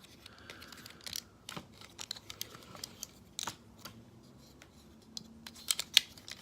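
Plastic parts of a Combiner Wars Sky Lynx transforming figure clicking and knocking as they are turned and closed by hand. The clicks are irregular, with a few sharper ones near the end.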